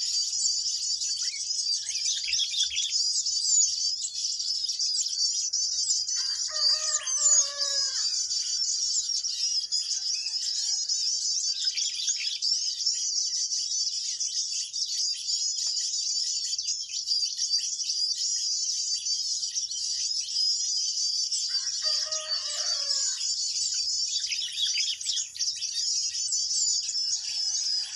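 Dense, unbroken high-pitched twittering of small birds, with a rooster crowing twice, about a quarter of the way in and again near three quarters.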